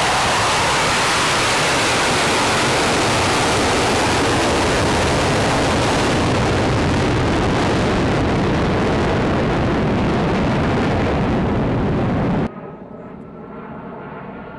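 Jet engines of four F/A-18 Hornets, two F404 turbofans each, at takeoff power as the formation climbs away: a loud, steady jet noise whose high hiss thins out after about six seconds as the jets draw away. About twelve seconds in, the sound drops suddenly to a much quieter, duller rumble.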